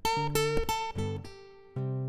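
Background music: an acoustic guitar picking a slow melody, each plucked note ringing out and fading, with some notes struck together as chords.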